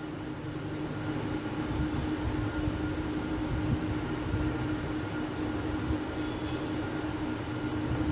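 Handheld whiteboard eraser scrubbing back and forth across a whiteboard as the writing is wiped off, a continuous low, rumbling rub with a faint steady hum underneath.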